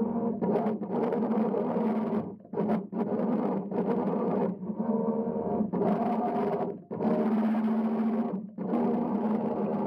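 Bait boat's electric motors humming steadily, picked up underwater by the camera, cutting out briefly several times.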